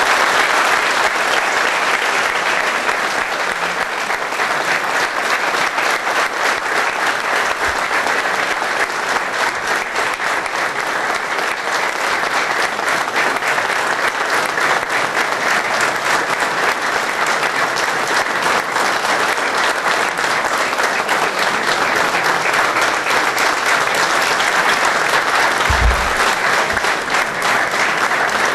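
A roomful of people applauding at length, a dense steady clapping that neither builds nor fades.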